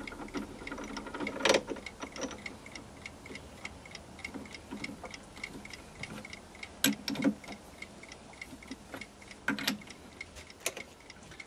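Smiths mechanical timer ticking steadily, with a few metallic clunks from a lathe's three-jaw chuck as a brass bar is fitted and tightened with the chuck key; the loudest clunk comes about one and a half seconds in, others near seven and near ten seconds.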